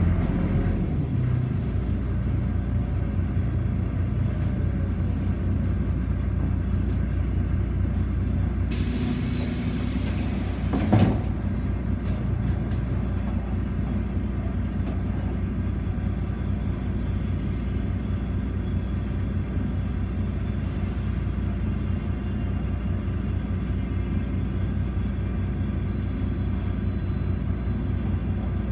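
City bus running, heard from on board: a steady low rumble. About nine seconds in there is a hiss lasting about two seconds, which ends in a sharp knock.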